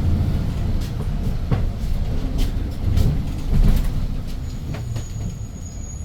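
Inside a Hyundai New Super Aerocity city bus on the move: the low rumble of its compressed-natural-gas engine and the road, with several sharp rattles and knocks from the body at irregular intervals.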